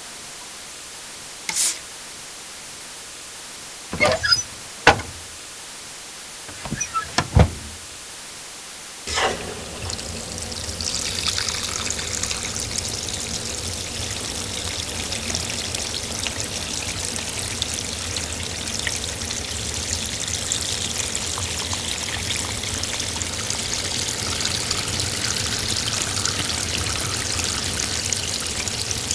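A few short, sharp clicks and knocks, then water starts pouring and runs on steadily.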